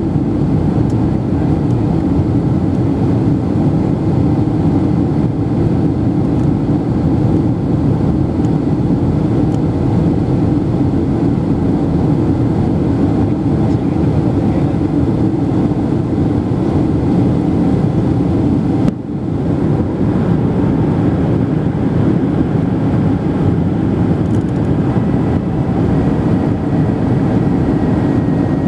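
Steady engine and airflow noise inside an airliner cabin on approach. There is a brief dip about two-thirds of the way through, and a faint high tone comes in near the end.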